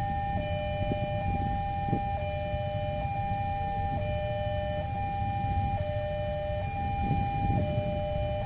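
Railway level-crossing warning alarm sounding its electronic two-tone signal, stepping between a higher and a lower tone, each held just under a second, the signal that a train is approaching. A steady low rumble runs underneath.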